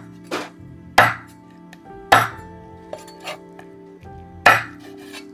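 A cleaver chopping a cooked duck into pieces on a wooden chopping board: four sharp chops, unevenly spaced, with lighter knocks between.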